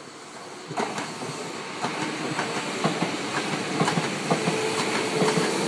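Sanyo Electric Railway commuter train passing close by, its wheels clicking rhythmically over the rail joints and growing louder as the cars go past. A steady tone joins in about two-thirds of the way through.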